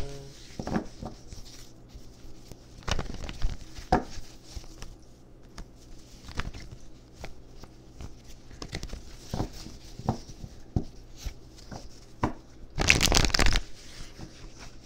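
A deck of tarot cards being shuffled by hand: scattered soft slaps and flicks of cards, with one louder flurry lasting under a second near the end.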